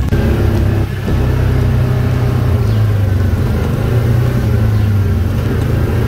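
ATV engine running steadily while riding a dirt trail. There is a short dip in the sound about a second in.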